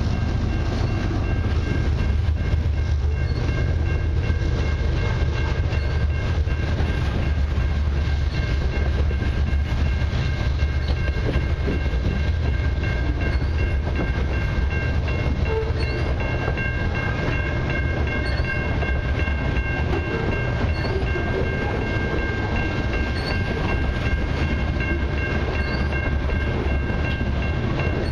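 Covered hopper cars of a long freight train rolling past at a grade crossing: a steady low rumble with wheel clatter, and a few steady high ringing tones above it.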